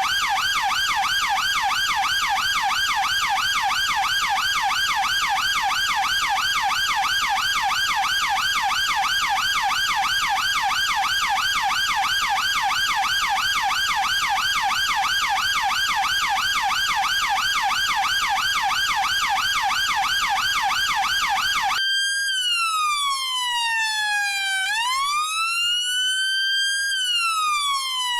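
Chinese police car's electronic siren sounding a rapid yelp that warbles up and down several times a second. About 22 seconds in it switches abruptly to a slow wail, falling in pitch over about three seconds and then sweeping back up.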